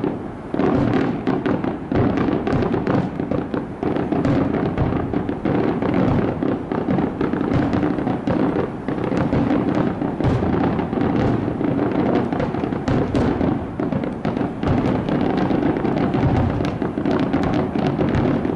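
Fireworks display in a dense, unbroken barrage: many bangs in quick succession, overlapping one another.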